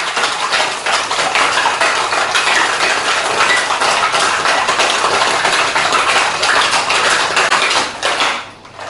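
Ice cubes rattling hard inside a metal cocktail shaker, shaken fast and steadily to chill the cocktail, stopping near the end.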